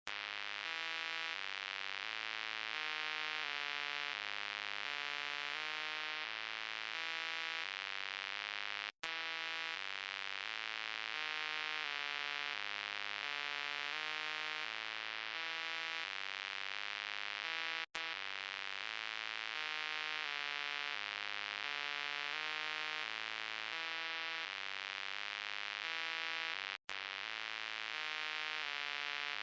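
Synthesized robot voice sound effect: a run of buzzy electronic tones that step up and down in pitch several times a second. The pattern repeats as a loop about every nine seconds, with a brief cut between repeats.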